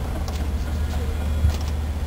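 A steady low mechanical hum, with a few faint ticks and one soft thump about one and a half seconds in.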